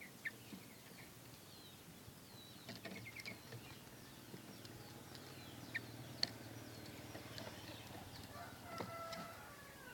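Faint scattered chirps and short calls of small birds, with a rooster crowing once about eight and a half seconds in.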